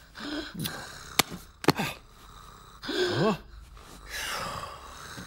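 A cartoon character's wordless vocal sounds: short gasps and grunts, a rising-and-falling 'hmm' about three seconds in, and a breathy sigh near the end. Two sharp clicks come between a second and two seconds in.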